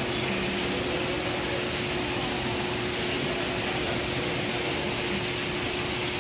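Steady rushing of a waterfall running into a shallow stream, an even hiss with no breaks, with a faint constant hum underneath.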